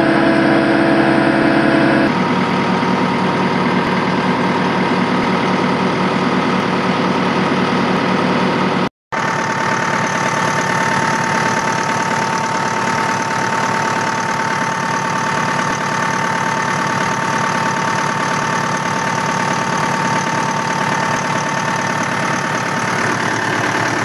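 Diesel engine of a 1992 Vögele Super 1502 asphalt paver running steadily at idle. The sound changes abruptly about two seconds in and cuts out briefly about nine seconds in.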